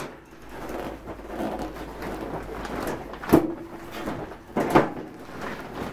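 Shuffling and scraping as objects are moved about, with two sharp knocks, the first about three and a half seconds in and the second just over a second later. The first knock leaves a short ringing tone.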